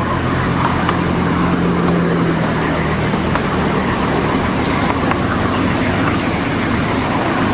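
Miniature ride-on railway train running on its track: a steady rumble with a low hum that fades after about three seconds.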